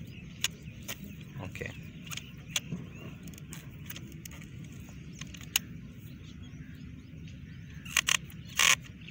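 Scattered sharp plastic clicks from the rotor of an Eagle 751 part-circle golf sprinkler being turned by hand. The clicks show the turret turning toward its arc limit. A few louder clicks come near the end, over a low rustle of handling.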